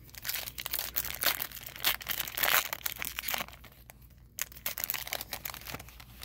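Foil wrapper of an Upper Deck Artifacts hockey card pack being torn open and crinkled by hand, in two bouts of rustling with a short lull about three and a half seconds in.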